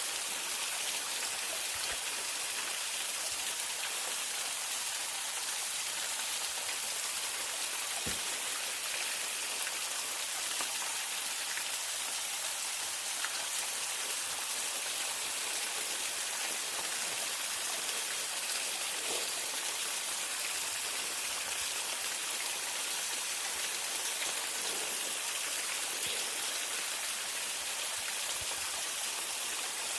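Steady hiss of water falling and running at a partly frozen waterfall, with one faint knock about eight seconds in.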